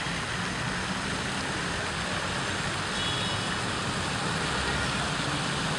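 Steady outdoor city ambience: an even rushing noise, with a faint chirp about three seconds in.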